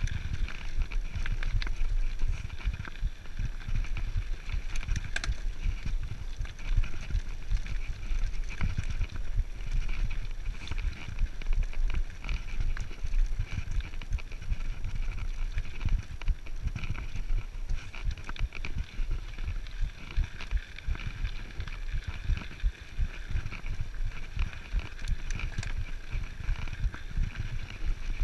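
Mountain bike rolling down a loose gravel trail: tyres crunching over stones and the bike rattling with constant irregular knocks as it bounces over the rough ground, over a steady low rumble.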